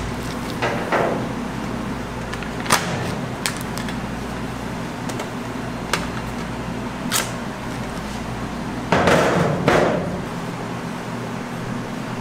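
Scattered sharp metal clicks and knocks from a stainless steel chocolate guitar cutter frame being handled, with a longer scraping rustle about nine seconds in, the loudest sound. Underneath runs a steady machine hum.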